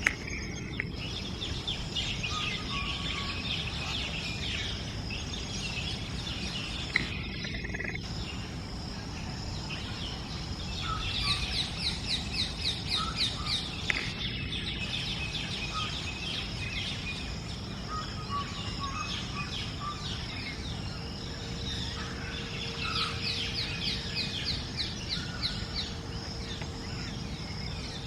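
Small birds chirping and trilling in quick high runs over a steady background of outdoor noise, with two brief gaps where the sound drops out.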